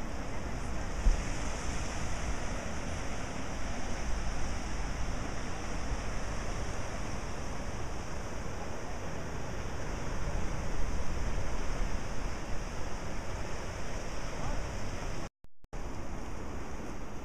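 Ocean surf washing over the rocks below a sea cliff, heard as a steady rush, with wind buffeting the microphone in uneven low rumbles. The sound drops out for a moment near the end.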